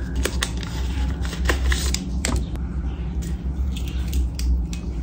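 A paper tea-bag sachet being torn open and handled, a run of irregular crinkles and sharp clicks over a steady low hum.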